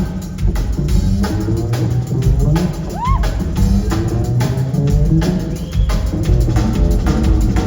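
Live rock band playing an instrumental stretch of a song with no singing: a steady drum-kit beat over a moving bass line. About three seconds in, a short sound swoops up and back down in pitch.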